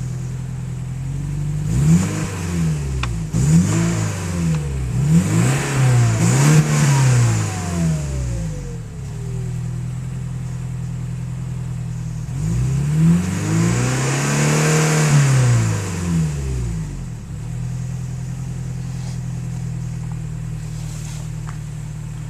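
Porsche 944 Turbo (951) 2.5-litre turbocharged four-cylinder engine idling and blipped about four times in quick succession, then revved once more slowly and let fall back to a steady idle. A thin whine glides downward as the revs drop: a turbocharger whine that the owner puts down to the turbo being out of balance, from debris buildup or a broken fin.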